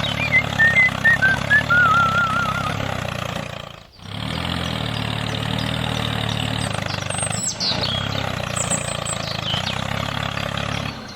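A tractor engine running steadily at idle, with a low even drone, broken by short cuts at about four and eight seconds. Warbling chirps sound over it in the first few seconds.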